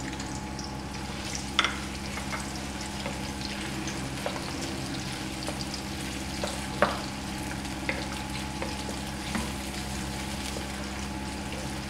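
Sliced onions sizzling in hot oil in a wok, stirred with a wooden spatula, with a few sharp taps and scrapes of the spatula against the pan. The onions are only being softened, not browned.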